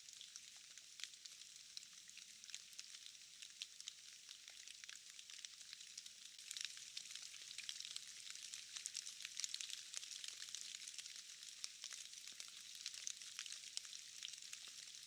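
Faint, thin patter of light rain, a dense fine crackle of small drops with no low rumble, growing a little busier about halfway through.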